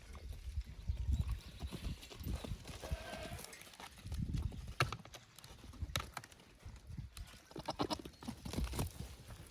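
Goats crowding close around the microphone: irregular hoof steps and dull bumps, with a few sharp knocks.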